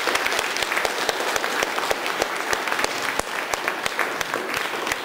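Audience applauding: many hands clapping in a dense, steady patter that eases off slightly toward the end.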